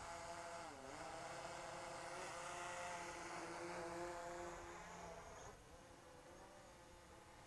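DJI Mavic Pro quadcopter with low-noise propellers flying, its propellers making a faint buzzing whine whose pitch wavers up and down as the motors adjust. The whine fades about five and a half seconds in.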